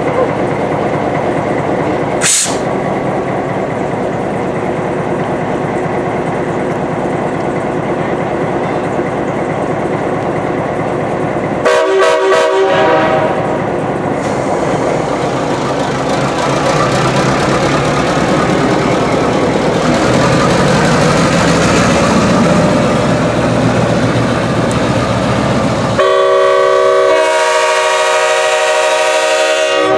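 Train running steadily, then railroad air horns: a short blast about twelve seconds in, and a long horn of several notes at once from about 26 seconds in.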